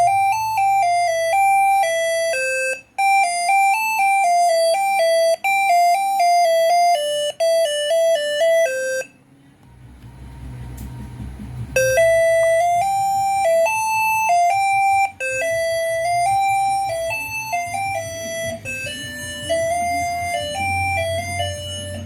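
Basuri six-trumpet telolet air horn playing a tune through its melody module, in short stepped horn notes. About nine seconds in the notes stop for roughly three seconds, with a low rumble in the gap, then another tune starts.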